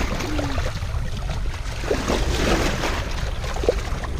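Bow wave rushing and splashing along a sailboat's hull as a pilot whale bow-rides and surfaces close alongside, over a steady low rumble.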